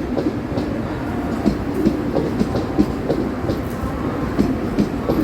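Mumbai suburban local electric train running through the station, a steady rumble with the wheels clacking irregularly over the track.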